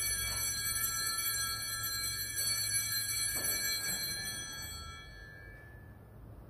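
Altar bells ringing at the elevation of the host during the consecration. Several clear tones hang on and die away about five seconds in.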